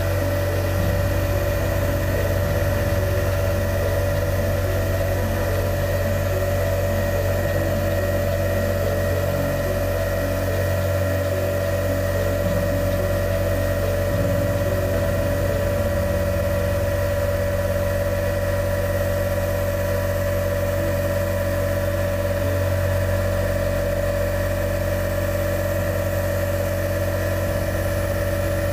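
Portable electric piston air compressor running steadily with a constant hum, feeding a gravity-feed paint spray gun, with the hiss of air and paint from the gun on top.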